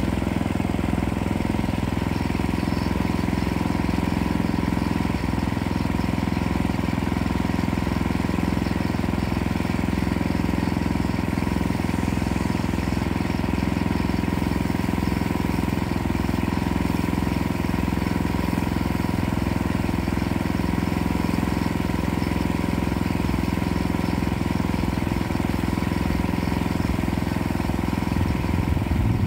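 Small gasoline engine on a portable band sawmill running steadily at an even speed.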